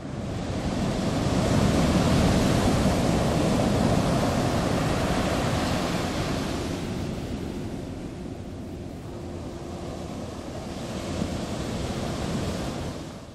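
Ocean surf: waves breaking and washing in, a steady rushing noise that builds over the first couple of seconds, eases off in the middle and builds again, then cuts off suddenly at the end.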